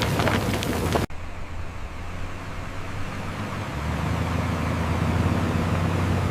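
Rattling and knocks of heavy machinery for about a second. Then, after an abrupt cut, a large engine runs with a steady low drone that grows louder a little past halfway.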